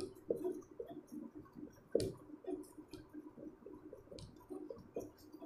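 Faint writing on a board: a string of small irregular clicks and short squeaky strokes, with one sharper tap about two seconds in.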